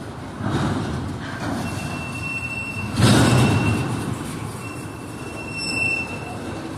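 Autorack freight cars rolling past, their steel wheels rumbling on the rails with a thin, high wheel squeal on and off. A sudden loud clatter about three seconds in is the loudest moment.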